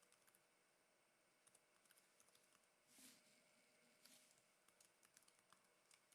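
Faint computer keyboard typing: scattered light key clicks at a very low level, close to silence.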